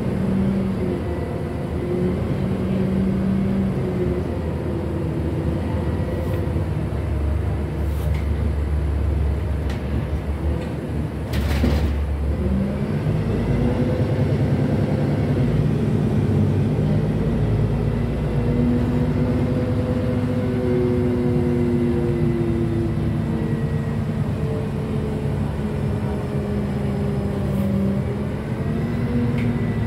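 NefAZ 5299 city bus heard from inside the passenger cabin while driving: the engine and drivetrain run steadily with a low rumble, their pitch gliding up and down as the bus speeds up and slows. A short sharp knock or rattle comes about eleven and a half seconds in, after which the engine pitch climbs as the bus accelerates.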